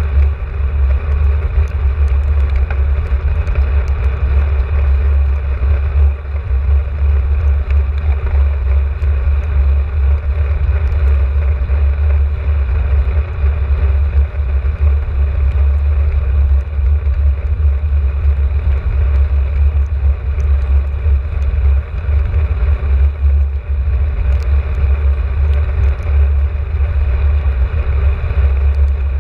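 Wind buffeting the microphone of a camera on a moving bicycle: a loud, steady low rumble.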